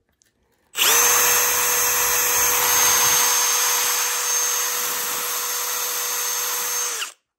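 Power drill spinning a small pipe-cleaner brush down a coolant water jacket in a Toyota 2JZ engine block, scouring out coolant residue and dust. The drill starts about a second in, runs with a steady whine for about six seconds, and stops suddenly.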